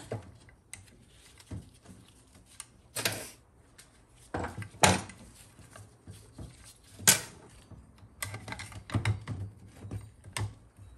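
Metal tools and small steel parts clicking, tapping and knocking against a TH350C transmission valve body casting in scattered, irregular strokes as the detent valve is worked loose. A cluster of quicker clicks comes near the end.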